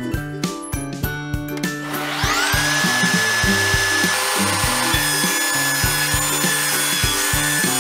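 Festool Precisio table saw spinning up about two seconds in, its motor whine rising to a steady pitch, then running steadily while a board is ripped lengthwise with the blade tilted to 45°. Background music with a steady beat plays throughout.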